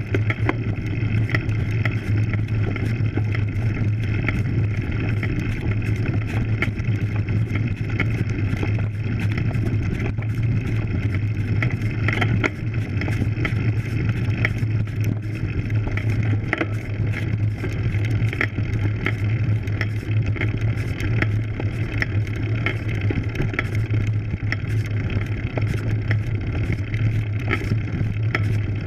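Road bike climbing a dirt road, heard through a camera mounted on the bike: a steady low rumble of the tyres and frame over the unpaved surface, with frequent small irregular rattles and clicks.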